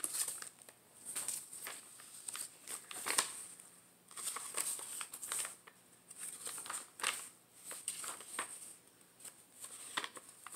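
Paper pages and flaps of a handmade journal being lifted and turned by hand: irregular short rustles and crinkles of paper and card, with brief pauses between them.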